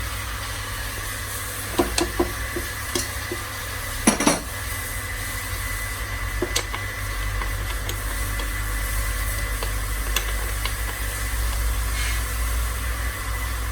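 Metal tool clinks and clanks as a bottom bracket tool is worked on a bicycle's bottom bracket: a few light clicks about two seconds in, a louder clank at about four seconds, and single clicks later. A steady low hum runs underneath.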